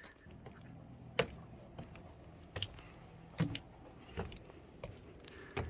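Footsteps climbing a flight of stairs: separate sharp steps roughly every second, over a steady low hum.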